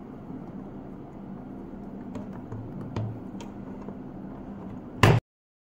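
A few light plastic clicks from a DeWalt 20V battery pack being handled on its charger, then a short, loud clack about five seconds in as the pack is gripped and slid off; the sound then cuts off suddenly.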